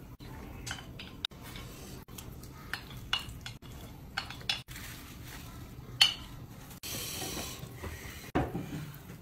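Chopsticks clinking and scraping against a ceramic plate and a stainless-steel hotpot as food is pushed into the pot and stirred, with many small sharp clicks and one loud clink about six seconds in.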